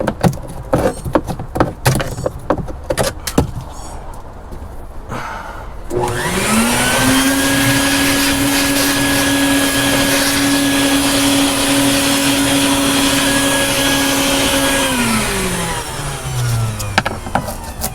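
A flathead screwdriver scrapes and clicks against flaking paint for the first few seconds. About six seconds in, a vacuum cleaner is switched on: its motor rises in pitch to a steady whine, runs for about nine seconds, then winds down as it is switched off.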